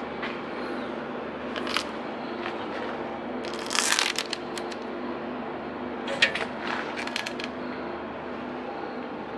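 A steady mechanical hum with a few close scraping, rustling noises over it, the loudest about halfway through, followed a couple of seconds later by a quick run of sharp clicks.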